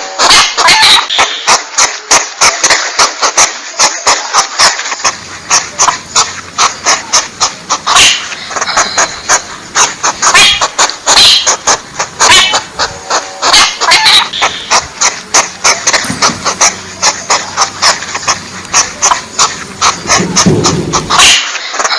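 Porcupine calls: a loud, fast, unbroken run of sharp clicks and squeaky chatter. A low hum runs beneath from about five seconds in until near the end.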